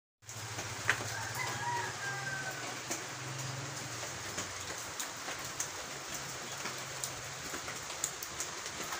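Steady rain falling, with scattered sharp drips. A rooster crows once, about a second and a half in.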